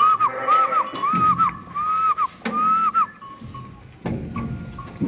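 A person whistling a quick run of about five short whistles, each rising and then dropping sharply, stopping about three seconds in: a shepherd's whistle calling the sheep in to feed.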